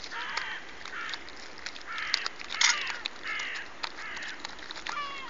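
Birds calling: short, harsh, caw-like calls repeating about half a dozen times, the loudest about two and a half seconds in, with light clicks and rustles between them.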